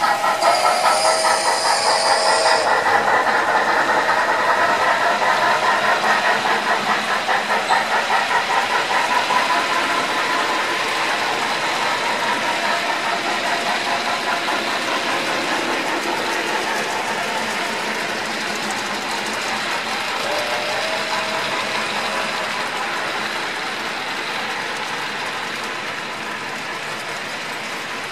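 HO-scale Erie Triplex model's ESU LokSound decoder sound through its onboard speaker. A steam whistle blows until about two seconds in, and the loco then chuffs rapidly, fading as it moves away. After that comes a steady rolling sound of the model freight cars' wheels on the bridge track, slowly getting quieter.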